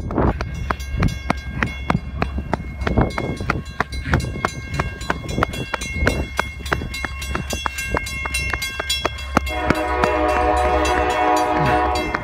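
Norfolk Southern freight train's diesel locomotives with a steady low rumble and a string of sharp knocks. About ten seconds in, the multi-chime air horn blows one blast of about two seconds.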